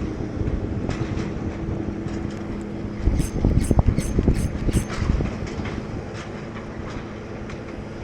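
Spinning reel being cranked, its gears making a steady whir with ratcheting clicks, over low wind rumble on the microphone. A run of about five sharp clicks comes about three to five seconds in.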